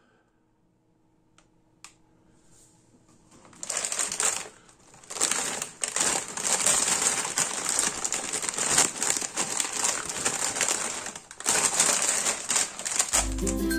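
Plastic-foil crisp packet of Lorenz Crunchips crinkled and crumpled in the hands: a dense crackle that starts about three and a half seconds in, after two faint clicks. Plucked-string music comes in near the end.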